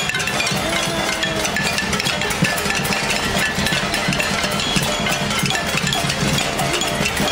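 A crowd banging on pots and pans, a dense and continuous metallic clatter of many strikes with ringing tones, with no single beat standing out.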